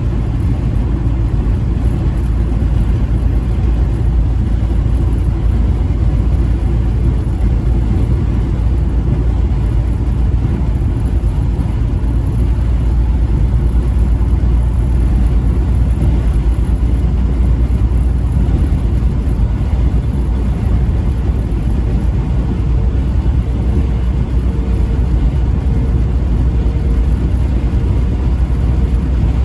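Steady low rumble of a moving road vehicle: engine and road noise. A faint steady tone joins in for a few seconds near the end.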